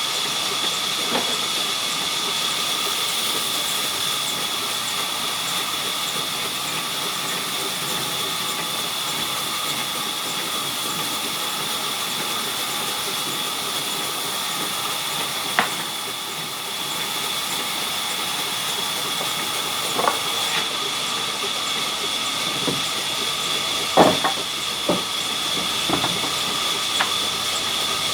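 Sawmill saw running steadily, a constant high whine over a hiss, with a few sharp knocks in the second half.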